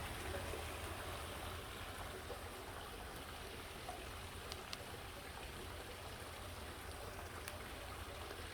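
Faint steady hiss of falling water, with a couple of tiny ticks.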